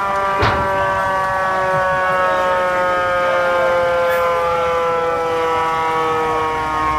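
Fire engine's siren sounding one long wail that falls slowly and steadily in pitch, as a mechanical siren does while winding down. A short knock is heard about half a second in.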